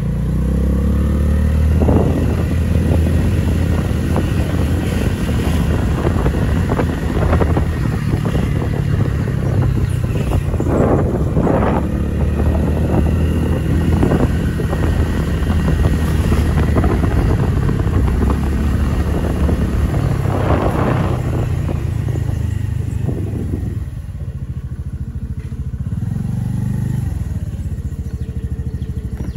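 Small motorcycle engine running while riding along city streets, with wind and road noise mixed in. Near the end it eases off and runs lower and quieter as the bike slows.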